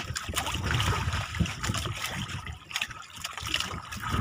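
Sea water splashing and trickling around the hull of a small outrigger fishing boat, with scattered small knocks.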